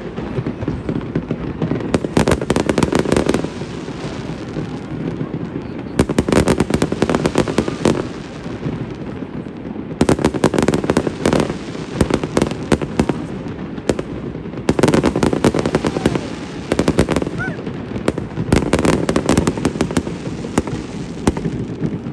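Fireworks display: volleys of rapid crackling bangs from aerial shells and crackle effects, coming in waves every few seconds, over a steady low rumble of booms and crowd noise.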